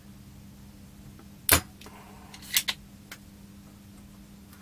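A few sharp clicks and clacks from desoldering tools working a chip on a circuit board: one loud click about a second and a half in, then two more close together a second later, over a steady low hum.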